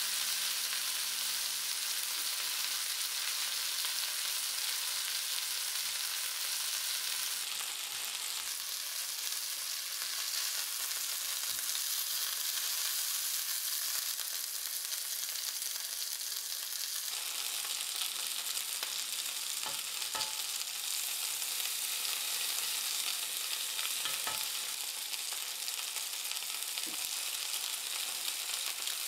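Chicken breasts frying in oil and butter in a cast-iron skillet: a steady sizzle, with a few light clicks in the second half.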